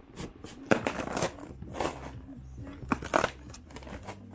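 A cardboard parcel being pried and torn open by hand: tape and cardboard ripping and scraping in several short, irregular bursts.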